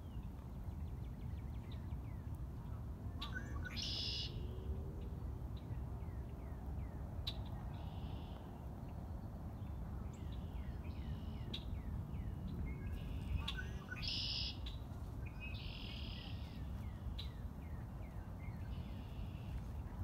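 Songbirds singing in a thicket: short buzzy trills repeat every few seconds, loudest about four and fourteen seconds in, among runs of quick down-slurred chirps. A steady low background rumble runs underneath.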